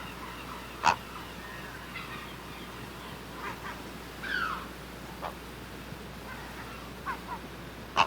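Great blue heron giving short, harsh calls: a loud one about a second in and another at the very end, with fainter short calls between.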